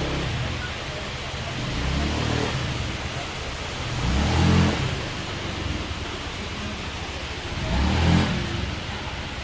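Honda Vario 125 scooter's single-cylinder engine idling and revved in three short throttle blips, the pitch rising and falling each time.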